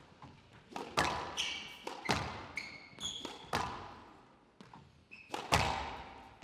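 Squash rally: the ball smacking off rackets and the court walls in quick irregular succession, with court shoes squeaking on the floor between shots. Each hit echoes briefly.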